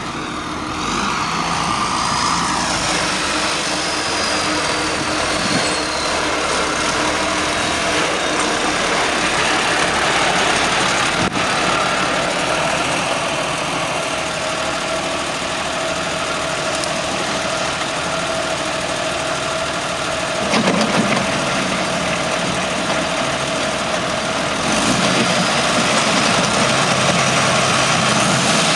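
Tractor engine running steadily under load while driving a Gaspardo AF 140 rotary bed former. The sound gets a little louder in the last few seconds.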